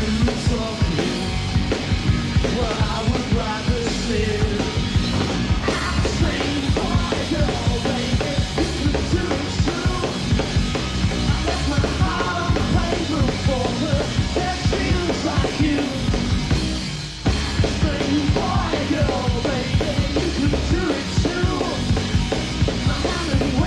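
Live rock band playing at full volume, drum kit driving under guitars, with singing over the top; the band drops out for a split second about seventeen seconds in.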